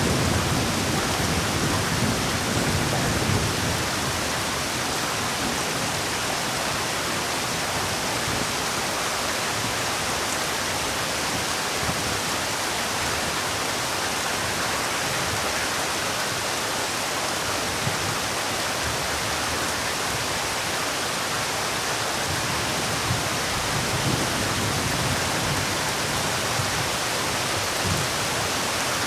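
Heavy rain falling steadily, a dense even hiss. A low rumble dies away over the first few seconds.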